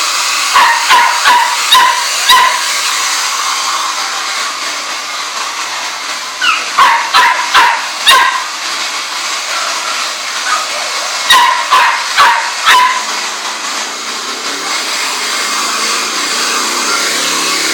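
Small dog, a chihuahua, yapping in three quick bursts of about five sharp, high yaps each, over a steady hiss.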